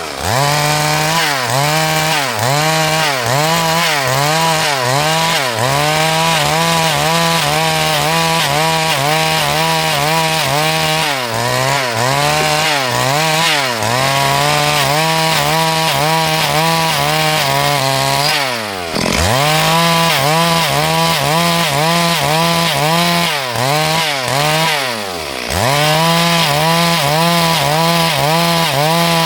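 Two-stroke chainsaw running at high revs while ripping lengthwise through a log. Its engine pitch wavers continually as the chain bites the wood, and about four times the revs drop sharply and then climb back.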